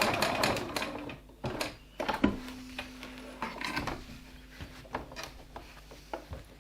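Work at a sewing machine: irregular clicks, knocks and rustling of handled fabric, with a low steady hum from about two seconds in until just before the end.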